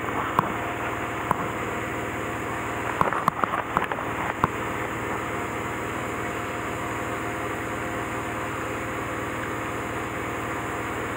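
Steady mechanical hum of running machinery with several constant tones, and a few light clicks and knocks from handling a round metal cable connector and rag in gloved hands, most of them between about three and four and a half seconds in.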